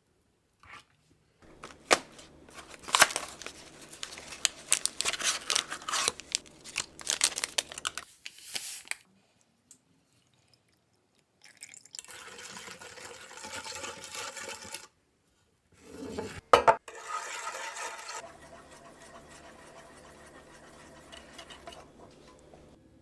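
A metal spoon clinks and scrapes against a metal muffin tin and its paper cups as diced mango is spooned in, with many sharp clicks. After a pause, a whisk beats a thin milk-and-egg mixture in a saucepan. Two sharp knocks come about two-thirds of the way in, then gentler, steady whisking.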